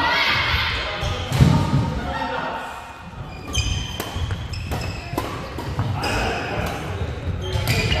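Badminton doubles rally on a wooden gym floor: a quick series of sharp racket-on-shuttlecock hits, with sneakers squeaking and footsteps thudding, echoing in a large hall. The hits come faster in the second half.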